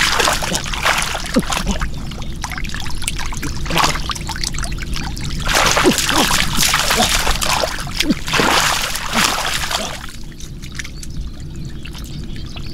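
Shallow field water splashing and pouring in long, irregular bursts, quieter over the last couple of seconds.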